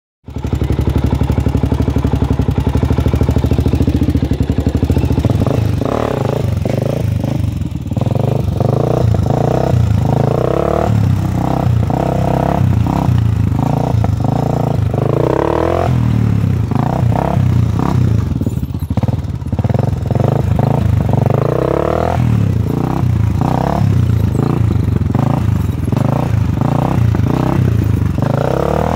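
Honda 400EX quad's single-cylinder four-stroke engine, running steadily at first, then revved again and again from about six seconds in, its pitch climbing and dropping with each throttle blip as the front wheels are lifted into wheelies.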